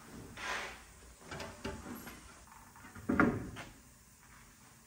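MDF panels of a subwoofer box being handled and fitted together: boards scraping and knocking against each other and on a concrete floor, with a few small clicks and one louder wooden knock a little past three seconds in.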